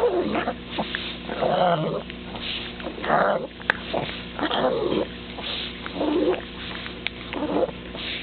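Pug making about six short throaty vocal noises that rise and fall in pitch while eating a treat, with wet clicks from chewing and smacking in between.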